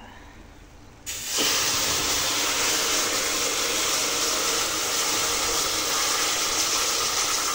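Water poured in a steady stream into a pot of rice, a loud, steady splashing hiss that starts suddenly about a second in.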